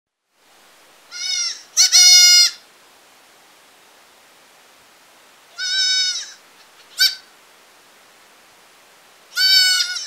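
Goat kid bleating in high-pitched calls: two close together about a second in, one near the middle followed by a short one, and another near the end.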